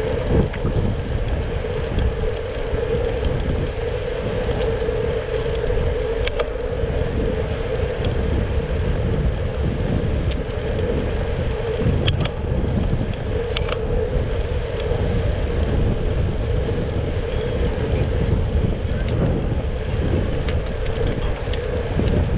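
Riding a Brompton folding bicycle on city roads: a steady low rumble of tyres on the road with a constant hum over it, broken by a few sharp clicks.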